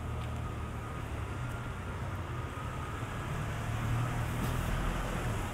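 A box truck's engine running close by, a steady low drone, amid street traffic noise that swells a little about four seconds in.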